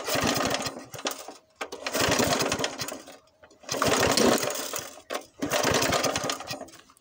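Small Briggs & Stratton lawn mower engine being pull-started four times, each pull turning it over in a quick chugging burst of about a second, and it does not keep running between pulls.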